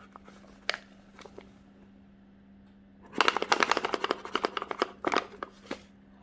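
Wheat flour pouring from a crinkling paper bag into a stainless steel mixing bowl. It starts with a few scattered clicks, then about three seconds in comes a dense run of crackling and rustling that stops near the end. A faint steady hum sits underneath.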